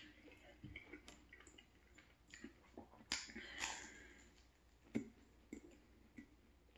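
Close-up mouth sounds of eating a Nutella-filled croissant: soft chewing and lip smacks, with a crackly flaky crunch as a bite is taken about three seconds in, and a few scattered small clicks.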